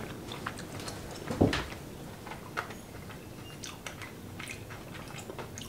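A man chewing a mouthful of soft rehydrated freeze-dried lasagna, with small wet mouth clicks scattered throughout. There is one short, louder low sound about a second and a half in.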